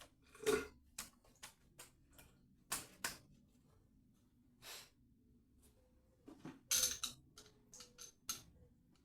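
Scattered light clicks, knocks and small metallic clinks of kitchen tap fittings and hand tools being handled, a few of the clinks ringing briefly in the second half.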